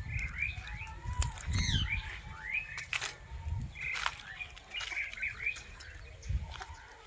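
Forest birds chirping and calling in quick, short notes that rise and fall, several overlapping. Irregular low thuds and a few sharp clicks sound underneath.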